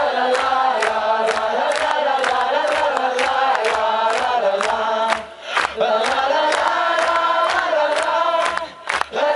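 Live medieval folk band music with bagpipes and nyckelharpa over a steady drum beat, and the audience clapping along in time, about two beats a second. The music breaks off briefly twice, about five and nine seconds in.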